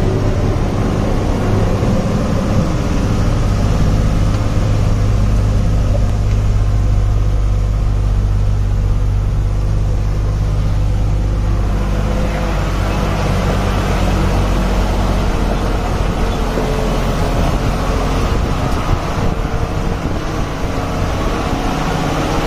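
Truck engine running under load, a steady low drone heard from the cab on a rough dirt road. About 12 s in the low drone weakens and more road and wind noise comes through.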